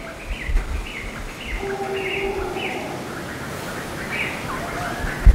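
Outdoor birds calling, a string of short, quick chirps repeating throughout over a light background hum, with a short low thump near the end.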